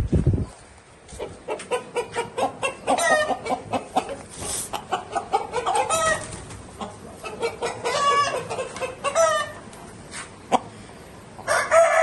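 Chickens clucking and calling over and over, short pitched calls coming in bunches, with a low thump at the very start.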